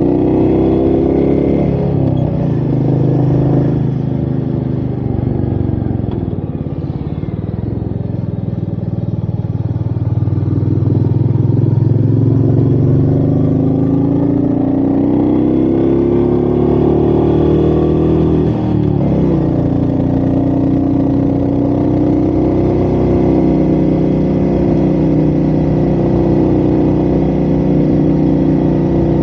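Royal Enfield Meteor 350's single-cylinder engine pulling on the road, its pitch climbing as it accelerates and dropping suddenly at upshifts, once about two seconds in and again about two-thirds of the way through.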